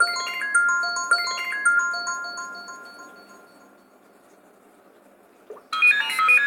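iPhone tone: a quick cascade of chime-like bell notes that rings on and fades away over about four seconds. Near the end another iPhone ringtone starts, a fast run of repeated bright notes.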